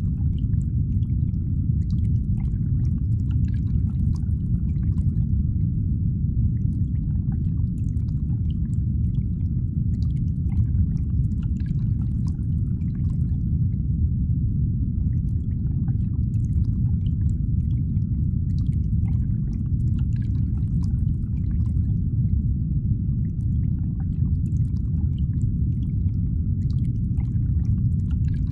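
A steady, deep rumbling drone with a faint high hum over it and scattered faint clicks, the sound-designed ambience of an animated alien world.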